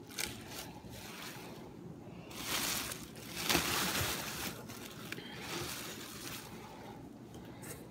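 Leafy greens and a cardboard box insert being handled, making a papery rustle and scrape. It comes in two stretches, the louder one about two and a half seconds in and a shorter one about five seconds in.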